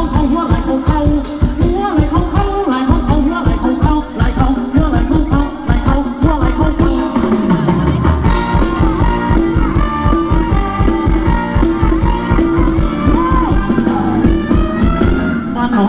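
Thai ramwong dance music from a live band over loudspeakers, loud, with a fast, steady drum beat under the melody.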